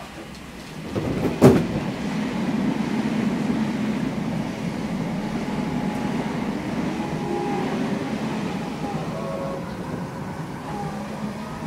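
Odakyu 8000 series electric train, an unrenewed car with field-chopper control, pulling away: one sharp clunk about a second and a half in, then a steady rumble on the rails with faint motor whine rising in pitch as it gathers speed.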